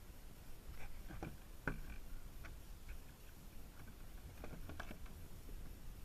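Faint scattered ticks and light knocks, a few louder ones about a second in, over a low wind rumble on the microphone.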